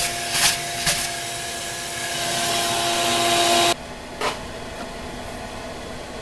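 Vacuum running with a loud suction hiss over a steady motor tone as brass chips are cleared off the mill vise, with a few sharp chip rattles in the first second. It is switched off abruptly about three and a half seconds in, leaving a low steady machine-fan hum and a single click.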